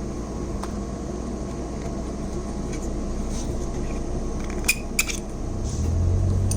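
Two light clicks about a third of a second apart, a little under five seconds in, as small parts of a die-cast toy bus are handled, over a steady room hum that grows louder near the end.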